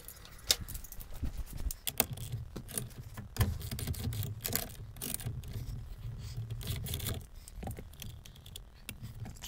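Irregular clicks and light metallic clinks of hand tools, with a wrench working on the steering-wheel retaining nut.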